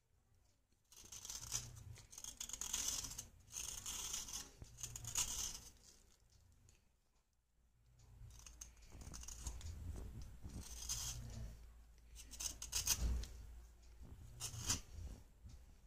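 Knife blade scraping a block of red clay, a run of dry rasping strokes shaving powder off its surface. The scraping stops for about two seconds midway, then starts again.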